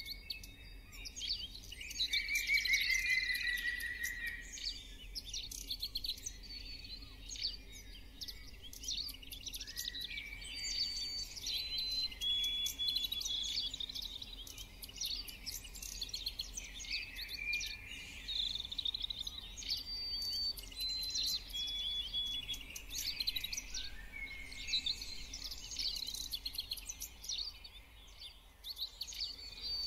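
Birds chirping and calling throughout, with many quick chirps. A phrase of short, steady whistled notes stepping down in pitch recurs every several seconds.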